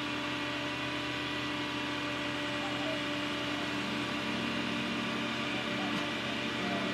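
Steady engine idle from the flatbed tow truck and the Corvette on its bed, with a second, lower hum joining about four seconds in.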